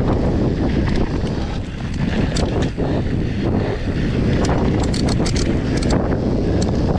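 Wind buffeting the microphone and a steady low rumble of tyres on a dirt trail as a mountain bike descends, with scattered sharp rattles and clicks from the bike over bumps.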